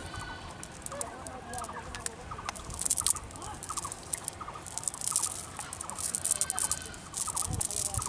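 Nylon cast net being handled on mud: rustling and wet flapping in short bursts a second or two apart, over a background of quick, repeated chattering calls.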